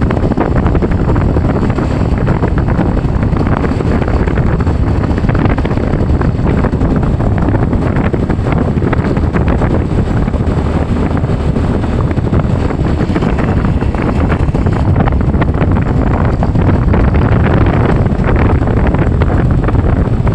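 Loud, steady wind buffeting the microphone of a moving vehicle, with the vehicle running underneath.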